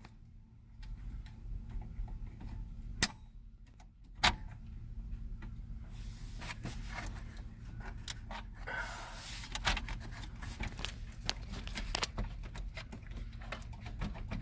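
Radio removal tools clicking and rattling in the dash as a stiff factory radio is pried loose, with two sharp knocks about three and four seconds in and a run of small clicks through the second half.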